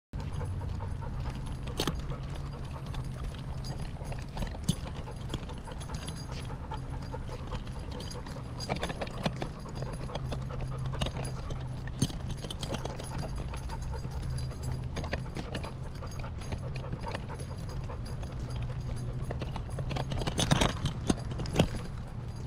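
A large Cane Corso dog panting, with footsteps and the scattered clicks of claws on pavement, over a steady low rumble. A few louder knocks come near the end.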